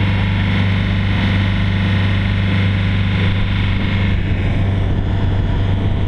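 Small passenger boat under way: its engine drones with a steady low hum, over a constant rush of water and wind.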